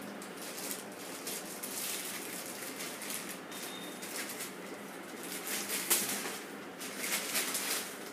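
Thin clear plastic wrapping rustling and crinkling as hands pull a laptop out of its protective bag, in irregular bursts that are louder past the middle and near the end.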